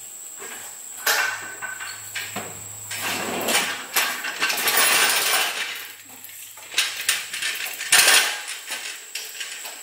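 Metal hand truck clattering and rattling as it is wheeled over a concrete driveway, then set down with a sharp clank about eight seconds in.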